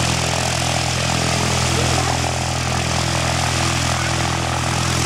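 Cessna 172's piston engine and propeller running steadily on the ground, a constant-pitched drone that holds unchanged.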